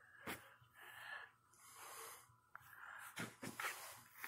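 Malamute breathing through its nose as it mouths a person's hand, with a few soft clicks.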